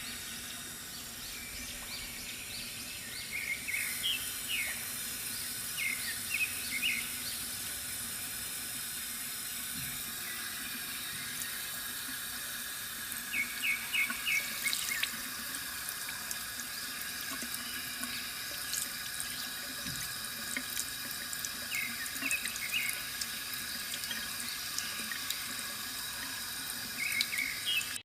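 Water trickling steadily from a bamboo water fountain, with small birds chirping in short bursts every few seconds.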